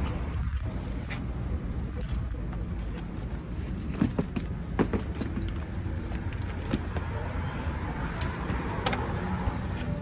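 A steady low rumble of street traffic, with scattered sharp clicks and knocks of luggage being handled and wheeled through a doorway, the loudest about four to five seconds in and again near the end.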